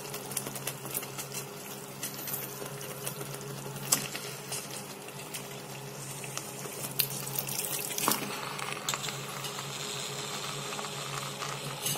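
Thick masala gravy bubbling over the heat in a pan, with a few sharp clicks and soft knocks as raw chicken pieces are dropped in, about four seconds in and again near eight seconds. A steady low hum runs underneath.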